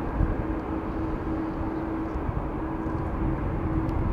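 Boeing 787-9 airliner's jet engines at takeoff power as it climbs out: a steady rumble with a steady low tone running through it.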